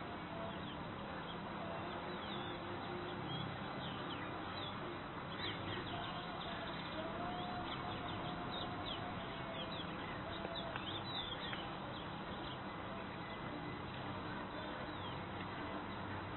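Birds calling outdoors in quick, short chirps, thickest in the middle of the stretch, over a steady outdoor hiss. A faint, drawn-out lower note sounds under the chirps partway through.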